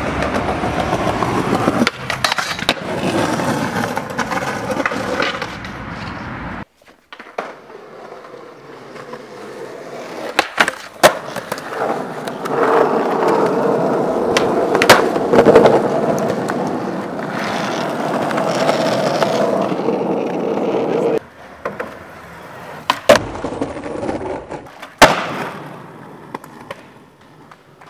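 Skateboard wheels rolling over rough street pavement, the rolling noise changing abruptly a few times, with sharp board pops and landing knocks from tricks.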